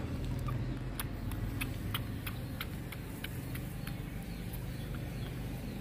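Baby otter suckling milk from a plastic feeding bottle: sharp wet sucking clicks at the teat, about two a second and thinning toward the end, over a steady low hum.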